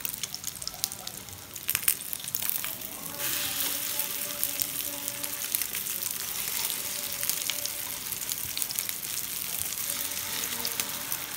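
Chicken shami kababs shallow-frying in hot oil in a pan: a steady crackling sizzle that grows louder about three seconds in.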